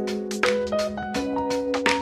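Background music: held instrumental notes that change every half second or so over a steady beat of sharp percussive hits.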